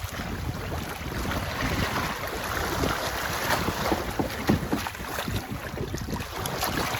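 Wind buffeting the microphone over water rushing and splashing along a sailboat's hull, with many short irregular gusts and slaps.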